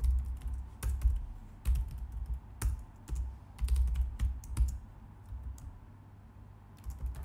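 Typing on a computer keyboard: irregular key clicks in short runs, thinning out into a brief pause near the end.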